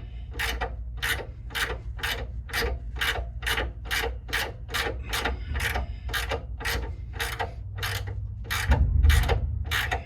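Hand ratchet wrench being swung back and forth on a bolt, clicking in a steady rhythm of about two strokes a second. A low rumble comes in near the end.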